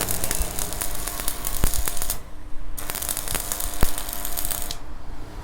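Electric arc welding crackling and hissing, with sharp pops. It breaks off for about half a second around two seconds in, then resumes and cuts off suddenly near the end.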